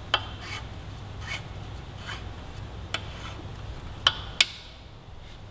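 Light metal clicks and ticks at irregular spacing as a 5 mm T-handle hex key turns the bolt of a stainless steel exhaust barrel clamp, snugging it onto the mid pipe. Two sharper clicks come close together about four seconds in.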